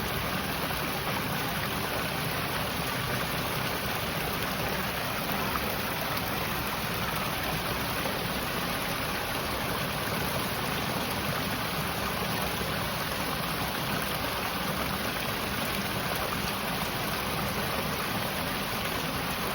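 Running water, a steady even rush like a stream or spouts pouring into a pool, unchanging throughout.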